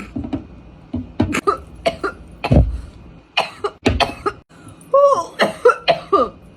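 A woman coughing in a long fit after a deep vape hit. Harsh coughs come in quick succession for the first few seconds, then several higher, voiced coughs that fall in pitch near the end.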